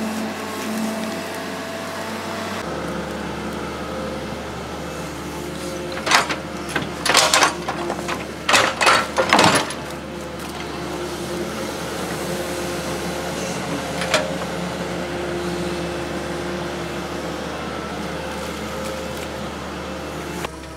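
Hydraulic excavator's diesel engine running steadily while it digs mud. A run of loud, sharp knocks and scrapes from the bucket comes in the middle, with one more knock a few seconds later.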